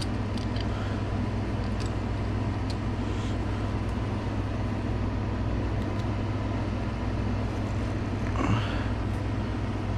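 Steady low hum, with a few faint clicks of hand tools on metal.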